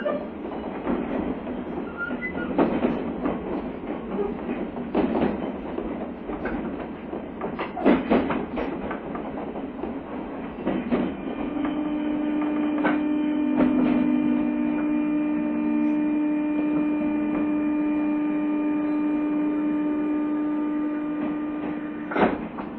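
JR East 201 series electric train running, wheels knocking over rail joints with a steady rumble. About halfway through, a steady whine of several pitches from the traction equipment sets in and holds, then gives way to two sharp knocks near the end.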